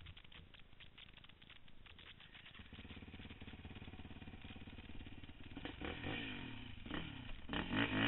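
A sport quad's (ATV's) engine comes in about three seconds in and runs steadily, then revs up and down with rising loudness in the last couple of seconds as the quad pulls away. Light clattering and rattling comes before it.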